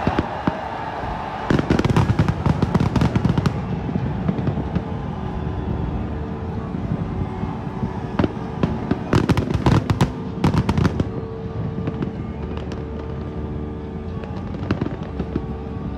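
Fireworks display: aerial shells bursting in two dense volleys of bangs and crackles, one about a second and a half in and another about halfway through, with scattered single pops between.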